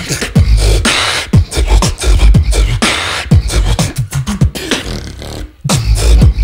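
Solo beatboxing into a microphone: deep kick drums that slide down in pitch, hissing snares and sustained low bass notes. The beat cuts out briefly about five and a half seconds in, then comes back in with heavy bass.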